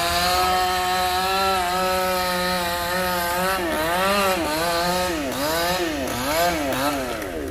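Chainsaw running at high revs while cutting through a large branch of a sao tree. Its engine note holds steady for about three seconds, then sags and picks back up several times in quick succession as the chain bogs down in the wood.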